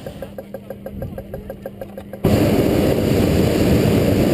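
A hot-air balloon's propane burner fires in one long, loud, steady blast starting suddenly about two seconds in. Before it, a small engine runs with a quick, even pulse of about five beats a second.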